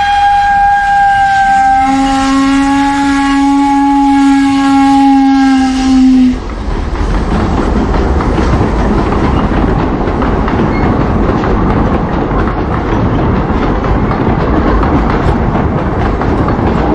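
Steam train whistle blowing a long multi-note chord for the level crossing, a deeper note joining about two seconds in, then cutting off suddenly about six seconds in. After it, the steady noise of the passenger coaches rolling past on the rails.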